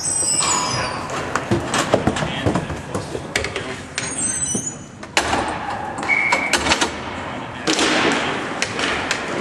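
Roller hockey play echoing in a large indoor rink: frequent sharp clacks and knocks of sticks and the rink boards, over a din of shouting voices.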